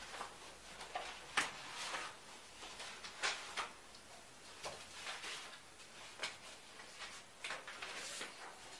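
Sheets of paper rustling as pages in a folder are leafed through, in short irregular strokes.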